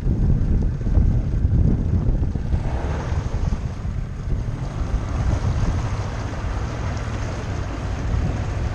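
Strong wind buffeting the microphone on a small aluminum fishing boat, with choppy water rushing along the hull as the boat turns and runs in. A broader rushing hiss joins the low rumble about two and a half seconds in.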